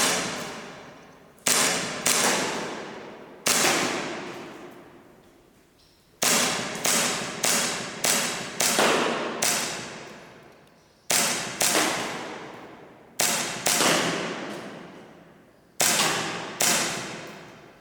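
Umarex Colt 1911 Classic CO2 air pistol firing 4.5 mm shots, about seventeen sharp cracks in all, some in quick runs of two to six, each followed by a long echoing decay.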